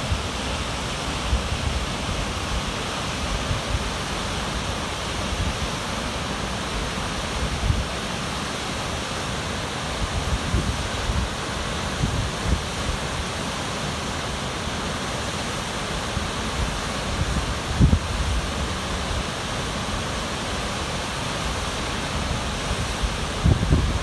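Steady rush of Harajiri Falls, several curtains of water pouring into the plunge pool. Wind buffets the microphone in brief low rumbles now and then, most strongly about 18 seconds in and near the end.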